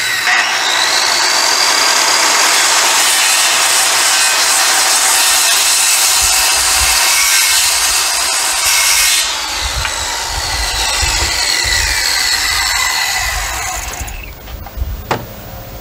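Circular saw cutting into a wooden deck post, its blade spinning up with a rising whine and then cutting steadily. About nine seconds in the sound changes and the blade winds down with falling whines. Around fourteen seconds in it stops, followed by a few knocks.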